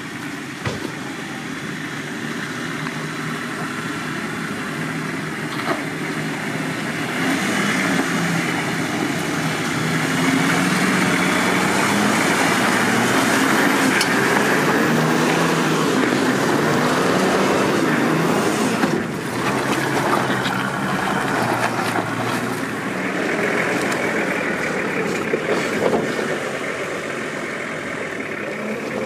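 Off-road 4x4's engine running with its speed rising and falling, louder through the middle stretch, with a few sharp knocks.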